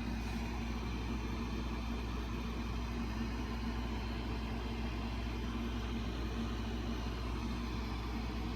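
Steady low background hum with a faint constant tone, unchanging throughout; no handling clicks or other events.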